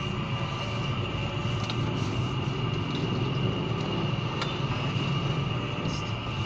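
A steady low rumble with a steady high-pitched hum over it, and a faint click about four and a half seconds in.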